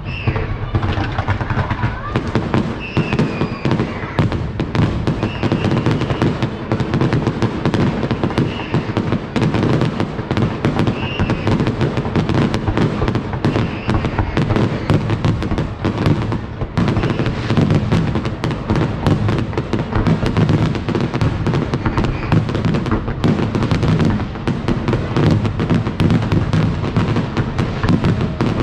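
Fireworks display: a dense, unbroken stream of bangs and crackles, many per second, with a brief lull about two-thirds of the way through.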